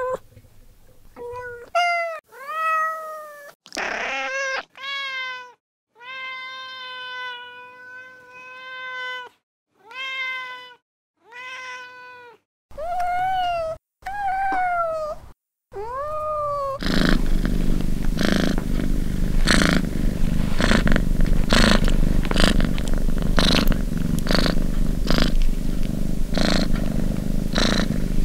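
Domestic cats meowing: a string of about ten separate meows, most rising then falling in pitch, one long and held steady. After about seventeen seconds it gives way to a cat purring continuously, the purr pulsing about once a second with its breathing.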